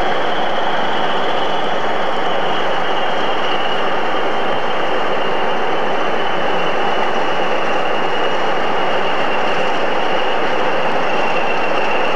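Diesel locomotives idling in a depot yard, an even, unchanging drone.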